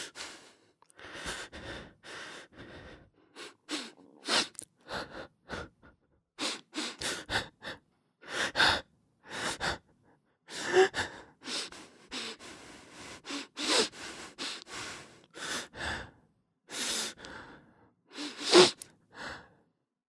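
A person crying: sobs and gasping, shaky breaths in short bursts one after another, with a loud sob near the end.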